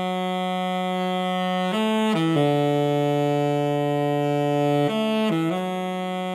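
Saxophone playing long held notes in a rock band recording, changing note briefly about two seconds in and again about five seconds in.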